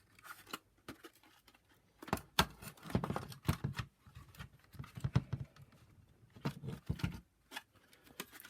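Irregular clicks and knocks of a vacuum power nozzle's hard plastic housing being handled and eased apart after its screws are out, with the loudest knocks about two and a half and five seconds in.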